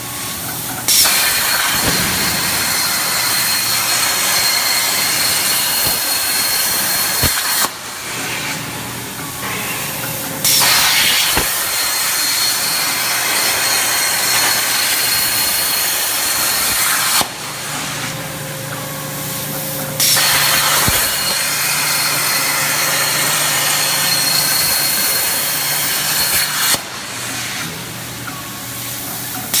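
CNC plasma cutter firing its arc: a loud hiss with a steady high whine, switching on suddenly and cutting off after about seven seconds, three times over, with a fourth cut starting at the very end. Between cuts, only a lower machine hum.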